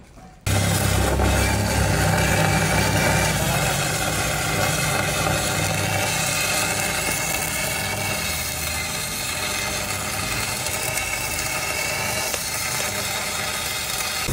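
Electric arc welding inside the bore of a badly rusted D24 engine cylinder liner: a steady arc that starts suddenly about half a second in. Welding a bead round the inside of the liner shrinks it so it can be pulled from the block.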